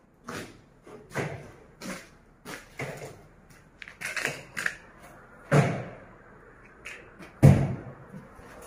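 A string of knocks and thuds, roughly one or two a second, with two louder heavy thumps about halfway and near the end.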